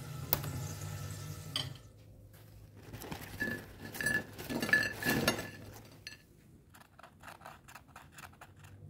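French fries dropping from a paper towel onto a glass plate: several light taps, with a short clinking ring from the glass. A low hum stops about a second and a half in, and near the end comes a quick, even run of light taps, about five a second.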